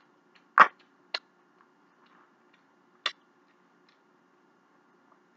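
A metal fork clicking against a dish while eating: four short, sharp clicks spaced unevenly, the first the loudest. A faint steady hum runs underneath.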